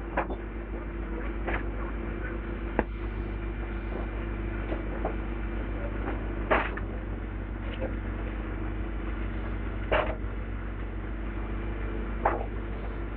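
Demolition excavator engine running steadily, with about half a dozen sharp knocks and cracks as material is pulled down.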